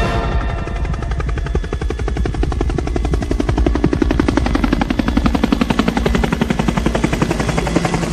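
Helicopter rotor chopping, a fast, even beat of blade slap over a low engine drone, louder in the middle and easing near the end.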